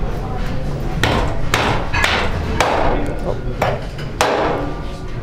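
Heavy meat cleaver chopping into a beef rib section on a wooden butcher's block: about six hard blows, roughly half a second to a second apart, each a sharp thwack with a short ring.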